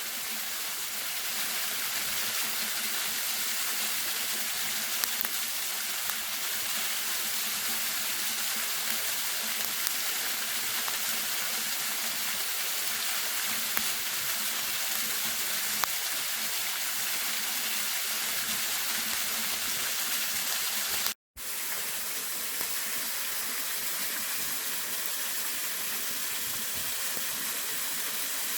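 Steady rushing of a waterfall, with a few faint sharp clicks scattered through it. The sound drops out to silence for a moment about two-thirds of the way through, then resumes unchanged.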